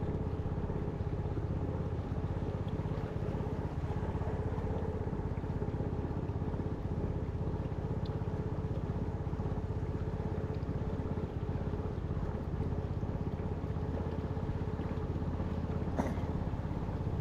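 Small boat's engine running steadily: a continuous low drone with a fast, even flutter, very noisy.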